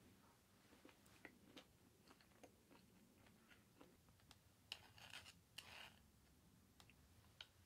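Faint, scattered clicks and taps of tableware being handled, a ceramic plate and a soup bowl with chopsticks, with a short cluster of soft scraping noises about five seconds in.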